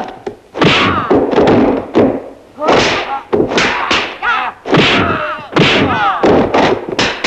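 Martial-arts film fight sound effects: a quick series of punch and kick impacts, with the fighters' short shouts and grunts between the hits.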